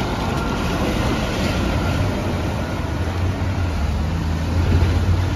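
Road traffic at an intersection on wet pavement: truck and car engines running and tyres hissing on the wet road, while a light-rail tram crosses. The sound is a steady low hum with a constant noisy wash, no single event standing out.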